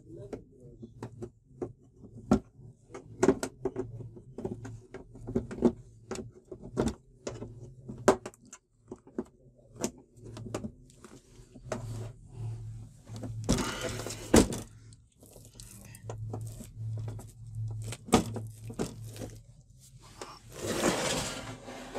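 Plastic snap clips of an LED TV's casing clicking and popping one after another as the bezel is pried apart by hand, with a steady low hum underneath. Two longer scraping sounds come about two-thirds of the way in and again near the end, as plastic slides against the panel.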